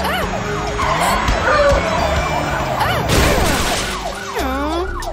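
Cartoon police-car siren wailing, then a crash sound effect about three seconds in as the car hits a tree. A quick run of falling whistle-like sweeps follows near the end.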